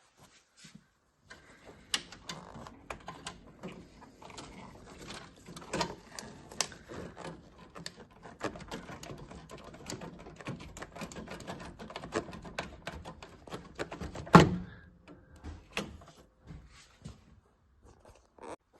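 Quick irregular clicks, taps and knocks of hands working on a Worcester Greenstar Si combi boiler's casing and fittings, with one loud knock about three quarters of the way through.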